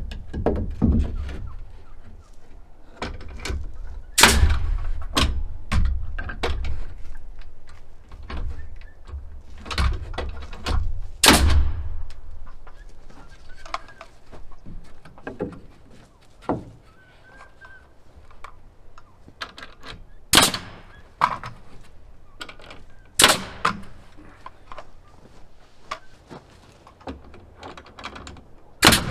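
Wooden strips being nailed to the inside of the wood framing: scattered sharp knocks of fastening, with softer thunks and handling of lumber between them.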